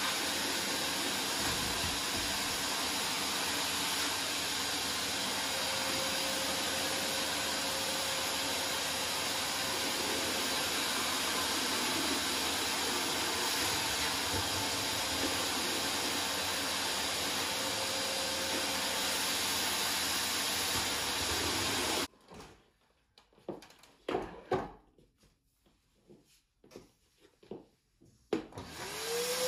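Canister vacuum cleaner running steadily with its wand nozzle on a wooden floor. The noise stops abruptly about three quarters of the way through, leaving a few soft knocks. Near the end the motor spins up again with a rising whine that levels off.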